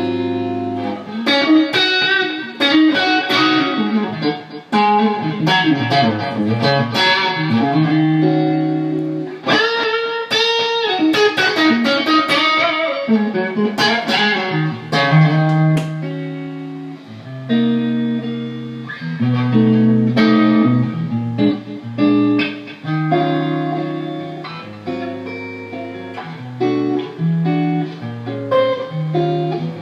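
Electric guitar played solo through a TC Electronic G-System effects processor during a sound check: held low notes and chords with fast single-note runs over them.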